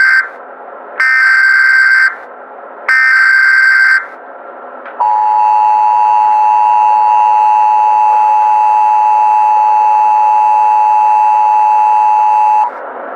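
Emergency Alert System tones: the end of one short buzzy data burst and two more about a second apart (the SAME header), then the steady two-tone EAS attention signal for about eight seconds, cutting off sharply near the end.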